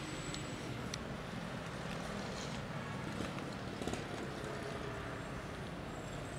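Steady low outdoor hum of distant traffic, with a few faint clicks.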